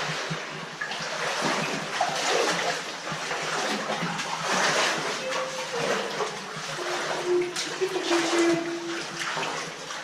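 Water splashing and trickling in a cave stream, a steady rushing with irregular splashes.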